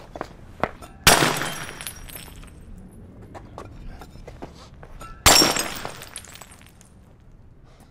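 Two plates smashed about four seconds apart, each a sharp crash followed by about a second of shards scattering and tinkling.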